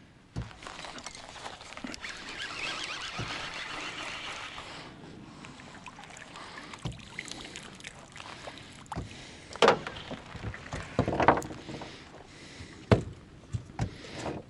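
Wind and water splashing as a snagged jig trailing weed and bottom junk is pulled up out of the water. In the second half come several sharp knocks against the small boat as the rig is brought aboard.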